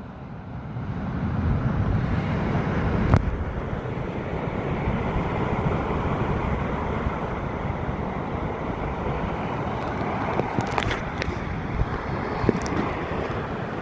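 Steady wind rumble buffeting the microphone, building over the first two seconds, with a sharp click about three seconds in and a few lighter clicks near the end.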